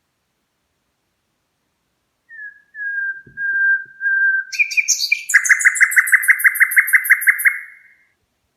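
Red-rumped parrot singing. After about two seconds of quiet come a few drawn-out whistles, then a fast trill of about six notes a second that fades out near the end.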